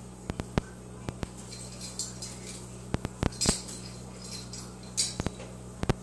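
A cockatoo moving about on its metal perch stand: a scatter of sharp clicks and clinks with a few short rustles, over a steady low hum.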